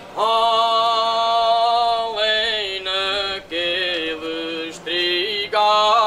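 Slow Portuguese song on the soundtrack, sung in long held notes: one long drawn-out note for about two seconds, then shorter phrases separated by brief breaths.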